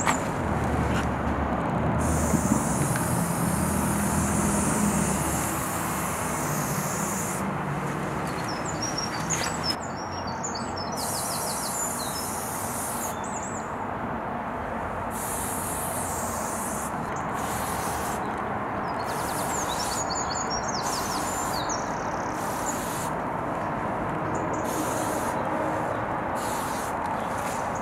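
Aerosol spray-paint cans hissing in bursts of one to a few seconds, with birds chirping now and then over a steady outdoor background. A low engine rumble is heard in the first few seconds.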